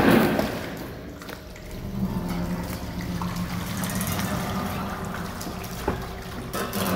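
Experimental film soundtrack: a swell that fades over the first second or so, then low sustained tones under a faint crackling texture, with a single sharp click near the end.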